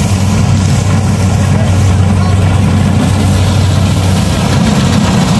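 Kubota DC-70 combine harvester's diesel engine running at a steady, loud hum.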